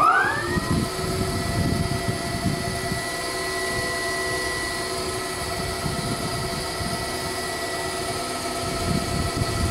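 Geared traction elevator machine starting up: its electric motor spins up with a rising whine that levels off within about a second into a steady running whine and hum, with a rumble underneath.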